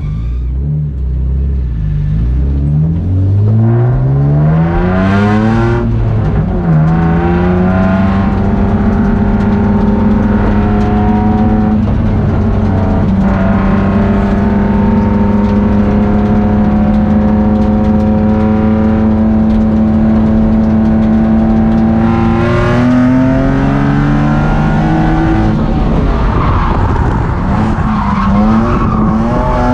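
A BMW E36 drift car's engine heard from inside the cabin: it revs up hard over the first few seconds, then holds at steady high revs for a long stretch, and climbs again about two-thirds of the way in.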